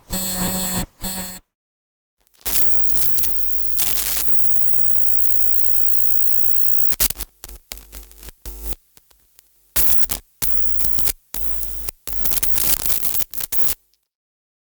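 Electrical interference sound effect: crackling static over a steady low mains hum, steady for a few seconds, then breaking up into stuttering bursts and abrupt dropouts. A brief glitchy burst cuts off about a second and a half in, followed by a second of silence before the static starts.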